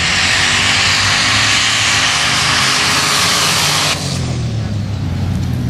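Two formula offroad cars launching side by side on a sand drag strip, their engines at full throttle under a loud, dense rush of noise. About four seconds in the rushing noise stops suddenly, leaving a lower engine drone.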